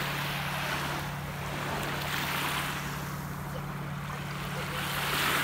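Small waves of the calm Baltic Sea washing in on the shore, a soft rush that swells and fades about every two to three seconds, over a steady low hum.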